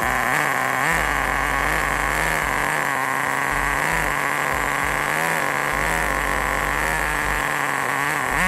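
Small two-stroke nitro glow engine of an HSP 94122 RC car running on WD-40 in place of nitro fuel, holding a steady speed with a slight wavering in pitch.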